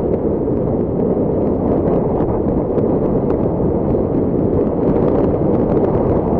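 Strong wind buffeting an action camera's microphone: a loud, steady rumbling rush, with faint light ticks running through it.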